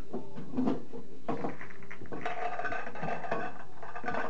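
Pool balls clacking against one another as they are pulled from the pockets and gathered into the triangle rack, a run of sharp clicks that thickens into a clatter partway through.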